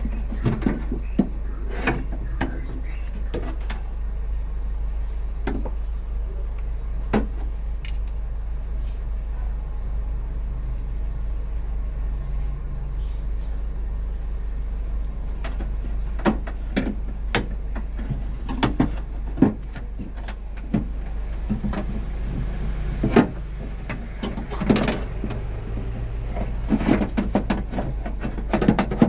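Scattered clicks and knocks of hand work on a car door, over a steady low hum.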